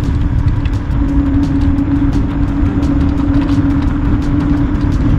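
Heavy wind buffeting on the microphone over the steady whine of a high-speed electric mobility scooter's motor while riding, the whine growing stronger about a second in.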